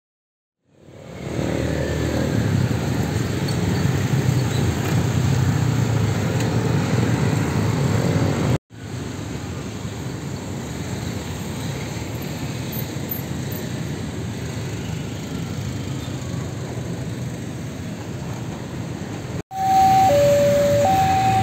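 Busy road traffic crossing a railway level crossing, mostly motor scooters and motorcycles running past with some cars, as a steady rumble that cuts out for an instant twice. About two seconds before the end, the level-crossing warning alarm starts: a loud electronic two-tone signal switching between a higher and a lower note about once a second, which signals that a train is approaching and the crossing is closing.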